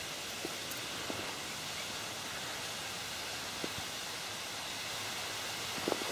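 Steady outdoor hiss of wind and rustling reeds, with a few faint ticks and a small cluster of them near the end from fingers handling the fishing hook and bait close to the microphone.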